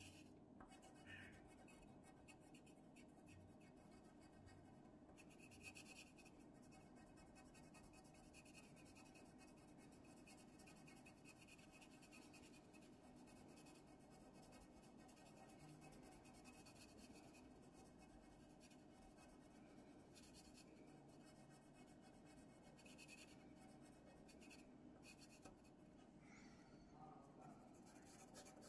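Faint pencil scratching on drawing paper, in intermittent clusters of strokes, over a low steady room hum.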